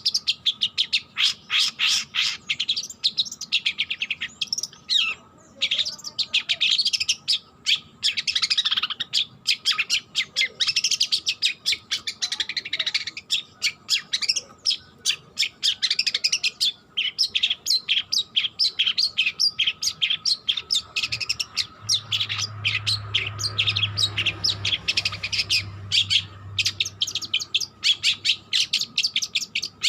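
Young long-tailed shrike singing a fast, unbroken chatter of chirps and twitters. It is a juvenile still learning its song.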